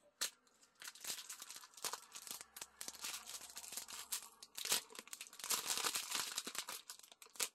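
Clear plastic bags crinkling and crackling as hands open and handle them, with the small round resin diamond-painting drills inside shifting and rattling in irregular bursts.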